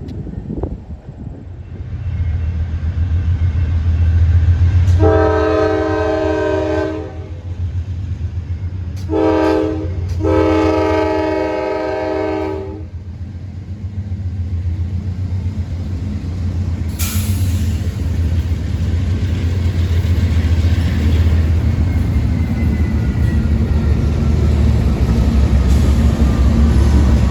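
A train locomotive's air horn sounds a long blast, a short one and another long one over the steady low rumble of the oncoming train. The train then passes with a continuous rumble and rail clatter, with a single clank partway through.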